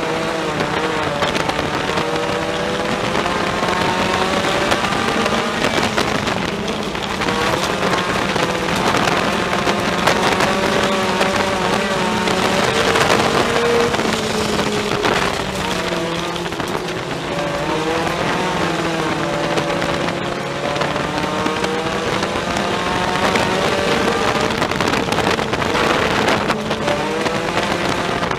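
Ford Focus sport compact race car's four-cylinder engine heard from inside the cockpit, revving up and down in long swells as the car accelerates and lifts, over steady tyre and road noise.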